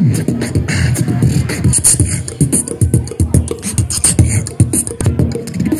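A man beatboxing into a handheld microphone through a PA: a fast, steady rhythm of deep kick-drum thumps, sharp clicks and short hissing hi-hat sounds.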